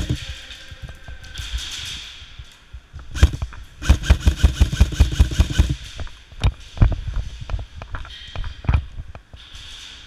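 Airsoft gunfire: a fast, even run of sharp cracks, about six a second, for roughly two seconds, with scattered single cracks and knocks before and after.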